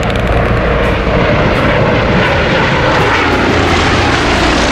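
Airbus H145M twin-turbine military helicopter flying past overhead: loud, steady rotor and turbine noise.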